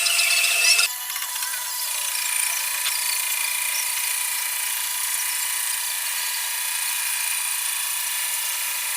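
Metal lathe running, a steady high-pitched whine with several ringing tones. A higher tone drops out about a second in, and the level eases slightly.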